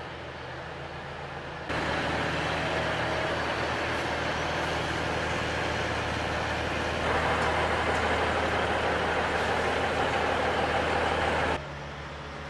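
Diesel engines of a heavy-haulage ballast tractor and its multi-axle girder-frame transporter running as the rig moves slowly along a road, with a deep steady hum under a loud, noisy engine sound. The sound jumps louder about two seconds in, rises again around seven seconds, and drops back abruptly near the end.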